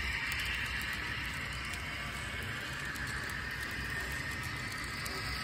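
Model train double-stack well cars rolling past on the track: a steady, low rolling noise of the wheels on the rails.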